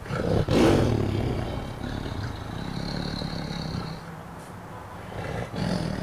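Recorded tiger roaring, played back from a smartphone speaker. A loud roar comes about half a second in and trails off over the next few seconds, and a second, shorter one comes near the end.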